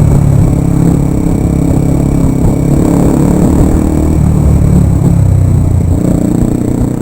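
Motorcycle engine running loudly through its exhaust while riding, its note shifting about a second in and again around four seconds in.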